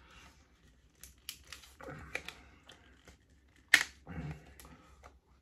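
Handling clicks from a plastic sports-drink bottle and its screw cap, with one sharp loud crack a little before four seconds in as the cap is twisted open and its seal breaks.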